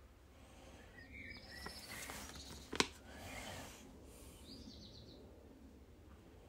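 Faint rustle of a paper decal sheet being held up and flexed by hand, with one sharp click a bit under three seconds in and a few short, high chirps.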